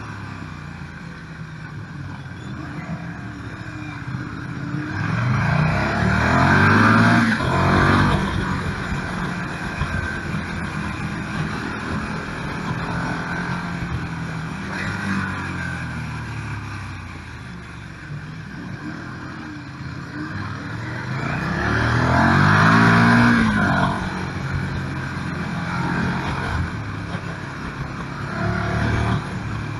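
KTM 1290 Super Duke R's big V-twin engine under way, revving up hard twice as it accelerates and falling back to a low, lumpy run in between, with a smaller pull near the end.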